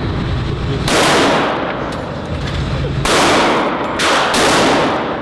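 Four gunshots at an indoor shooting range, each followed by a long echo in the hall. One comes about a second in, one about three seconds in, then two in quick succession about four seconds in.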